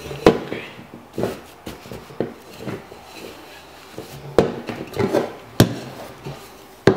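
Handling noise from a wheel of rolled disposable nappies being worked inside a metal pot: rustling with a series of irregular sharp knocks against the pot, the sharpest near the start, a little past five seconds in and just before the end.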